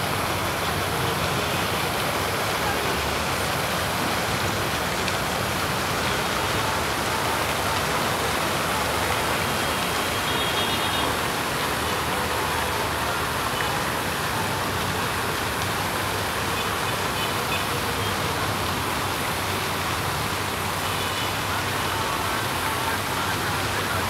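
Fountain water jets splashing steadily into a stone basin: a constant, even spray of falling water.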